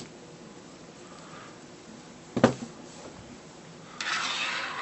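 Glock pistol slide parts clicking as they are handled during removal of the firing pin: a click at the start, a sharper click about halfway followed by a couple of faint ticks, and a brief rustle near the end.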